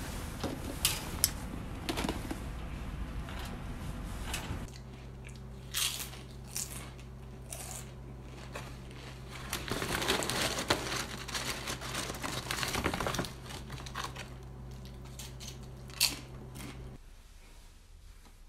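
Crinkling and crunching handling sounds, like plastic packaging being handled, broken up by sharp clicks. From about five seconds in a steady low hum runs underneath, stopping near the end.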